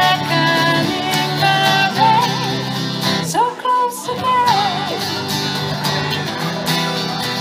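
Live acoustic trio playing: strummed acoustic guitars over a plucked upright double bass, with a voice holding long wavering notes without words about two and three and a half seconds in.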